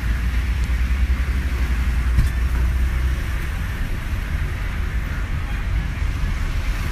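Steady roadside noise: a low rumble with an even hiss above it, like road traffic or wind on the microphone, with no clear music, drumming or voices.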